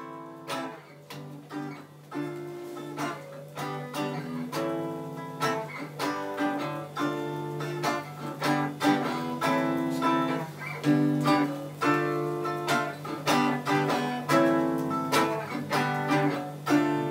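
Acoustic guitar playing a song's instrumental intro: chords struck in an even rhythm over a steady low drone, getting a little louder as it goes.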